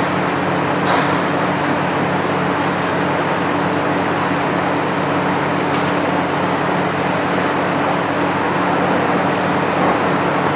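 Factory machinery running with a steady hum and a constant noise, broken by two sharp knocks, about a second in and near six seconds.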